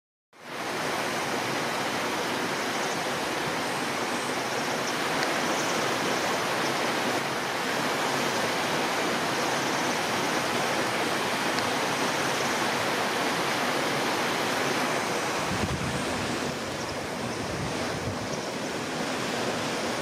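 Steady rushing hiss of flowing river water, even and continuous; a low rumble joins from about 15 seconds in.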